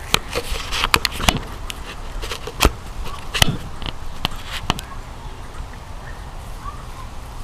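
Handling noise from a handheld camera being moved and set in place: a string of sharp knocks and rubbing on the microphone that dies away after about five seconds.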